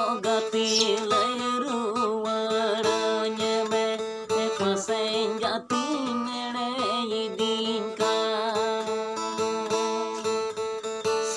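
A man singing a Santali lagre song in a held, sliding melody, accompanied by a strummed acoustic guitar.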